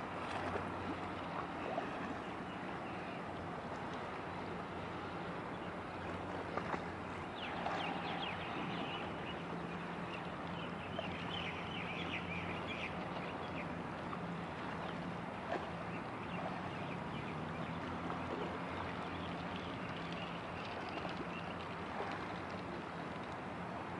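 Steady low drone of a passing container ship's diesel engine over wind and water noise, with a run of brief higher crackles about a third of the way through.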